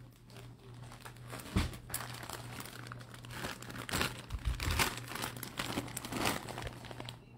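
Clear plastic bags crinkling irregularly as bagged football jerseys are picked up and moved, with a soft knock about one and a half seconds in.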